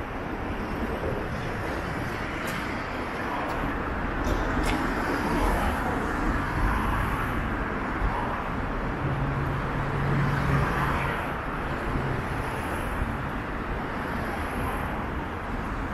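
Steady road traffic: cars passing on a wide multi-lane road. A low, steady engine hum from one vehicle stands out for about two seconds just past the middle.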